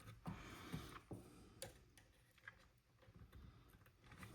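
Near silence with a few faint, sharp clicks as thick, stiff tinned wires are worked into a terminal lug.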